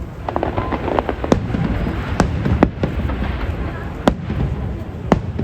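Aerial fireworks bursting: a dense crackle in the first second, then about six sharp bangs at uneven gaps over a steady low rumble.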